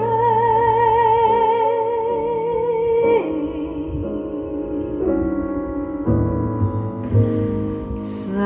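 Recorded song played back on a hi-fi stereo: a singer holds one long note with vibrato for about three seconds, steps down to a lower wavering note, then instrumental accompaniment carries on alone until the voice comes back near the end.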